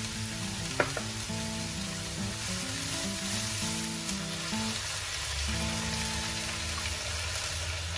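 Shredded cabbage and vegetables sizzling in a hot wok as a spatula stirs them, with a single sharp tap about a second in. Soft background music with held notes plays under it.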